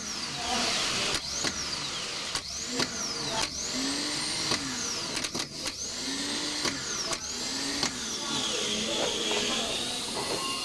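Rebuilt Nissan X-Trail starter motor, with a new solenoid, being test-run in short bursts. Each burst starts with a sharp click, then a high whine rises as the motor spins up and falls away as it coasts down. This repeats several times.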